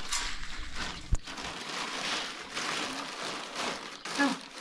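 A stone hand mill grinding wheat: a grating rasp of stone over grain that swells and fades with each turn. There is one sharp knock about a second in.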